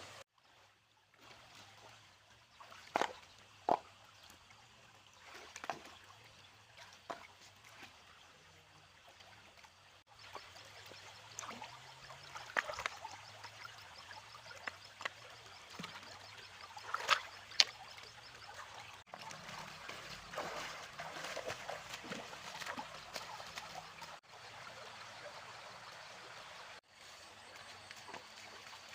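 Shallow water trickling and sloshing, with a few short, sharp splashes; the loudest come about three seconds in and again a little past the middle.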